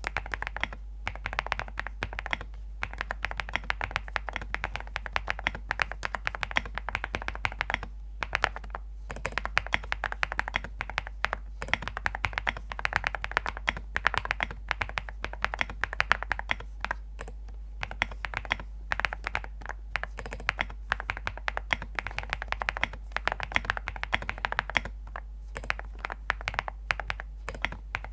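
Continuous fast typing on a Zoom65 mechanical keyboard with a PC plate, full foam and Graphite Gold switches: dense, rapid keystrokes with a few brief pauses, a tapping sound like small stones.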